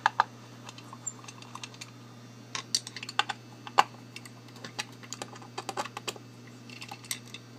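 Irregular light clicks and taps of small metal parts and hand tools being handled at a workbench while a bolted-down lock cylinder is taken off its mount, over a faint steady low hum.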